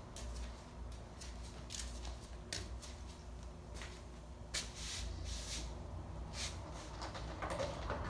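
Mondial Super Power 40 desk fan running with a steady low hum, with scattered irregular clicks and knocks throughout.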